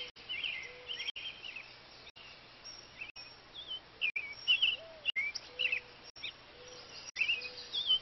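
Several small birds chirping and twittering in quick, high squiggly calls, with a softer, lower arched note repeating about once a second.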